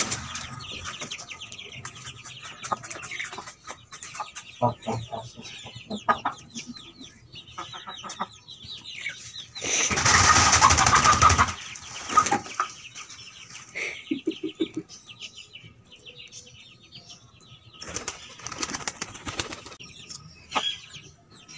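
Domestic pigeons and chickens flapping their wings, with two loud bursts of flapping about ten seconds in and again near eighteen seconds, and quieter scattered clicks and scuffs between.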